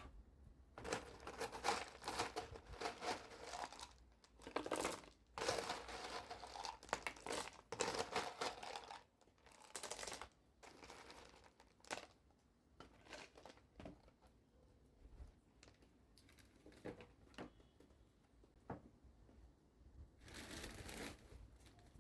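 Crinkling, rustling handling noise from repotting succulents, in several bursts of one to three seconds with small clicks between them.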